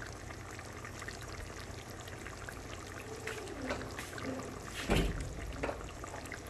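Pork and coconut milk bubbling steadily as it simmers in a wok, the coconut milk cooking down until it turns oily. A single dull bump about five seconds in.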